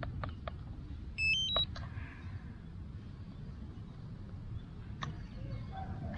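A quick rising run of three or four high electronic beeps about a second in, from the powered-up DJI drone setup, with a few soft clicks before it over faint background noise.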